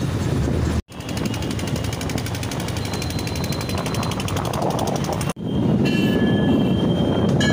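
Steady rumbling vehicle and traffic noise heard on the move, broken by two abrupt cuts, about a second in and about five seconds in. A faint steady tone runs through the last part.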